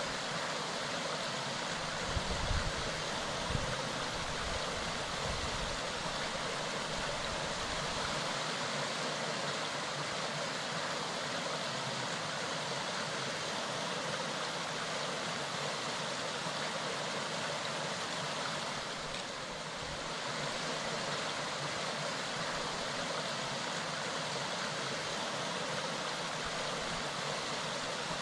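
Clear mountain stream running steadily, a continuous even rush of water. A few low thumps come about two to four seconds in.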